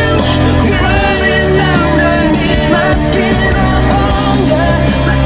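Pop or rock song with a singing voice over a steady bass line.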